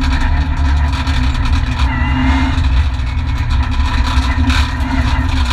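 Renault Mégane N4 rally car's engine running hard and steady under load, heard from inside the stripped cockpit together with tyre and road noise.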